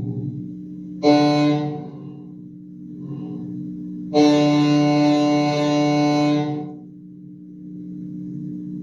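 A pitched instrument note sounded twice over a steady background drone: a short note about a second in, then a long note lasting about two and a half seconds. The two notes are a short sound and a long sound, given as examples of how long a sound lasts.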